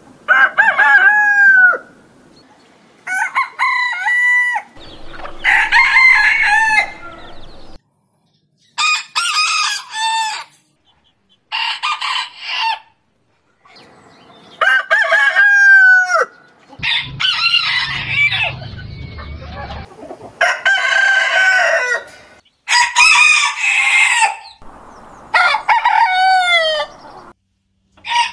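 Roosters crowing one after another, about ten crows in all, each lasting one to three seconds and often dropping in pitch at the end, with the birds changing from crow to crow.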